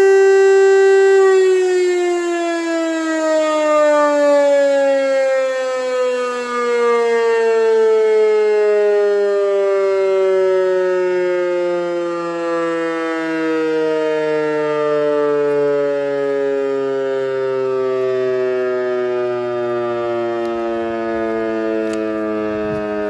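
A DS 977 electromechanical motor siren holds a steady tone. About a second in, its pitch starts falling slowly and steadily as the rotor winds down after the motor is switched off.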